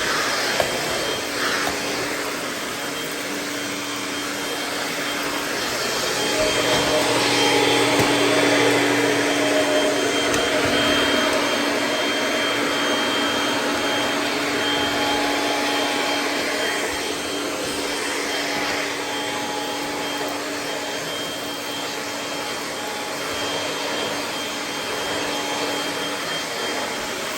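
Upright vacuum cleaner running with a steady motor hum, growing a little louder for a few seconds around the middle.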